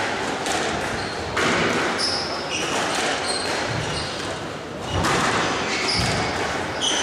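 Squash rally: the ball is struck by rackets and hits the court walls in a string of sharp knocks, with short high shoe squeaks on the wooden court floor, in a large hall.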